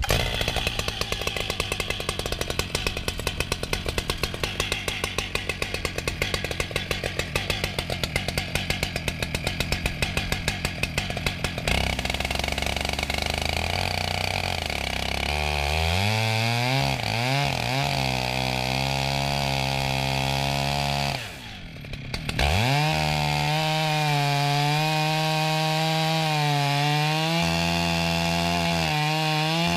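Two-stroke chainsaw on a chainsaw mill, first running with a fast, uneven pulsing beat, then revving up and settling into a steady high-speed run as it cuts a slice off a log. About two-thirds of the way through the engine briefly drops away before picking back up to full speed.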